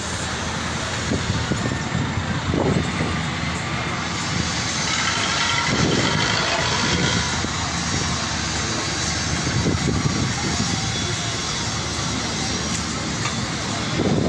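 Steady engine and road traffic noise along a busy street, running on without a break, as heard from a moving motorcycle.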